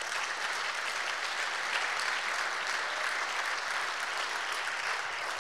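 Audience applauding: a steady wash of many hands clapping.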